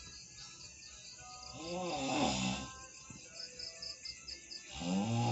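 A sleeping person snoring loudly in long, tuneful snores, each rising and falling in pitch: one about two seconds in and another starting near the end. Crickets chirp rhythmically in the background.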